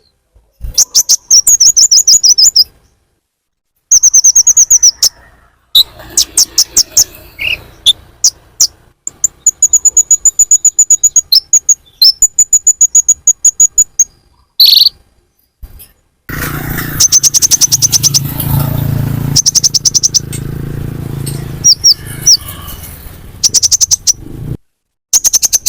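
Sunbird (konin) calls from a lure recording: bursts of fast, sharp chirps and high trilling notes, broken by short pauses. From about two-thirds of the way in, a rough hiss and hum lies under the calls for several seconds.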